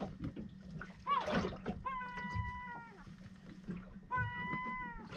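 Gull calling: a short rising-and-falling cry about a second in, then two long, level calls of about a second each that drop in pitch at the end.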